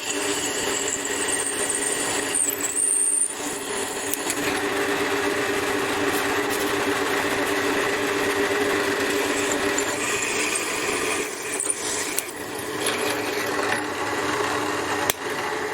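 Drill press motor running steadily while drilling through a stack of clamped steel plates, with a thin high squeal from the bit in the first few seconds and two brief dips in the sound as the feed eases off.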